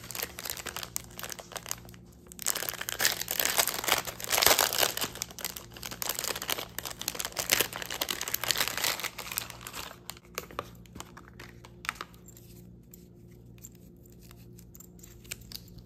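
Clear plastic packaging sleeve crinkling and tearing as it is pulled open and the contents are slid out, for about the first ten seconds. After that it goes much quieter, with a few light clicks.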